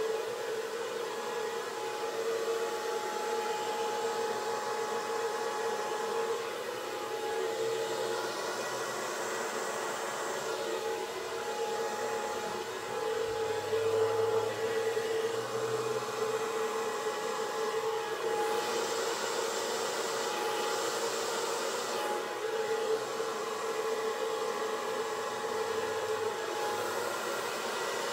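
Hair dryer with a narrow nozzle attachment running steadily, with a constant hum in its airflow noise, blowing wet acrylic paint out across a canvas to form a bloom.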